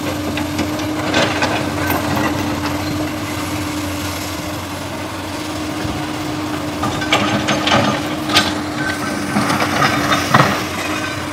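Komatsu PC200 hydraulic excavator's diesel engine running with a steady hum. Scattered knocks and scrapes come from its work, bunched in the second half.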